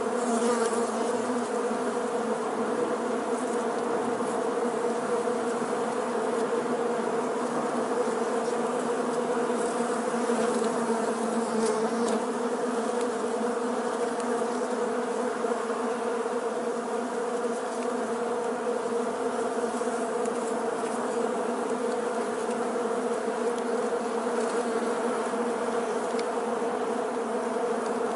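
A crowded honeybee colony buzzing on its comb: a steady, even hum that holds its pitch.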